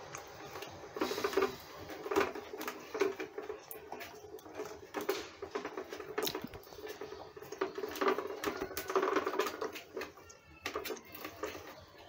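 Irregular rustling and small clicks as fingers pick at and peel old electrical tape from the wires of a vacuum cleaner's power cord, against its plastic housing.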